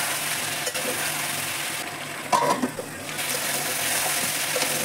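Chicken curry sizzling in a metal wok while a metal spatula stirs it, with a sharp knock of the spatula against the pan about halfway through.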